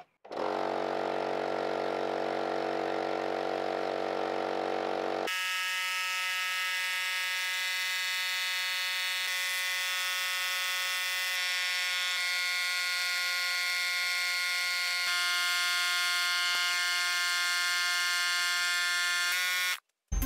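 Electric air compressor running with a steady motor hum. The sound changes abruptly about five seconds in, gets a little louder later on, and cuts off suddenly near the end.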